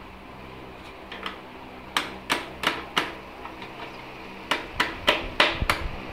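A hand hammer striking metal at the Honda Dream 110cc engine: four sharp taps, a short pause, then five more, about three a second.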